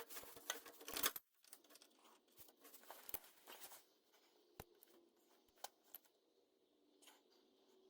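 Rustling and crinkling with quick clicks for about the first second, then a few scattered light taps and clicks of objects being handled.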